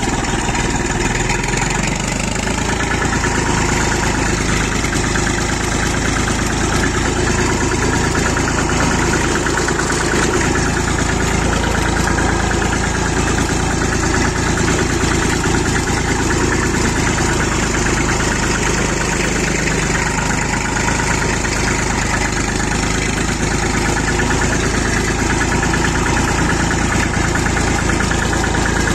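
IMT 533 tractor's three-cylinder diesel engine running steadily, freshly overhauled and three hours into its running-in.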